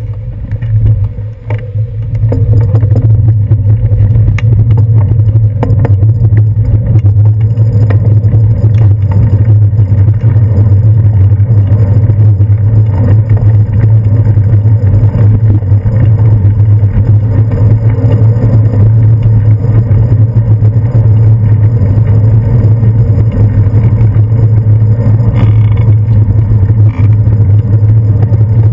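Steady low rumble of a bicycle ride picked up by a handlebar-mounted GoPro Hero 2: the ride's wind and road noise, with city traffic under it. It gets much louder about two seconds in, as the bike gets moving from a stop.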